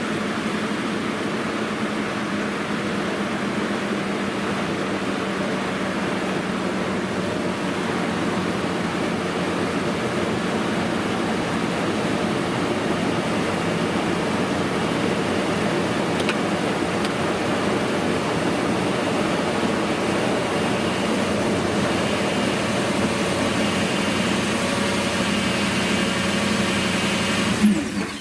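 Toyota Sequoia V8 engine idling steadily just after being jump-started from a dead battery on a cold morning. The sound cuts off abruptly near the end.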